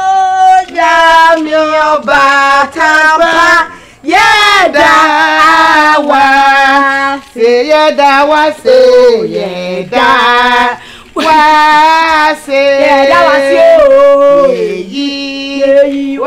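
A woman singing a melody in short phrases, with long held notes that slide between pitches.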